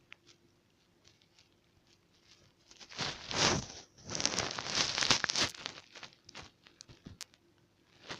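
Rustling and scraping close to the microphone in two bursts, a short one about three seconds in and a longer one a second later, with small scattered clicks around them.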